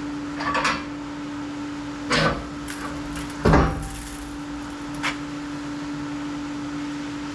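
Four separate clunks and knocks from a cast-iron cylinder head being handled and loaded into a shot blast cabinet, the loudest about three and a half seconds in. A steady hum runs underneath.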